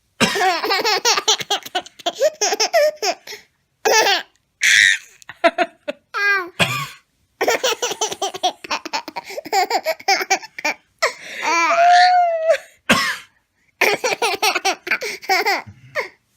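A baby laughing in long, repeated peals, with a man's short coughs in between that set the laughing off.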